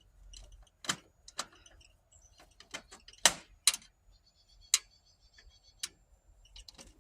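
Scattered sharp clicks and taps, about six in all, the loudest a little after three seconds in, from a Phillips screwdriver and screws as the old storm door handle is taken off the door.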